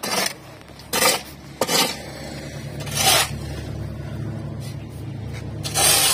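Metallic clattering and scraping from the steel frame of a mobile cinder-block making machine: five short, loud bursts, with a steady low hum setting in about two seconds in.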